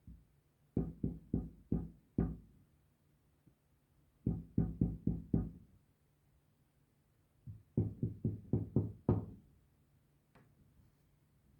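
Knocking on a door: three rounds of five to six quick knocks, each round a couple of seconds after the last.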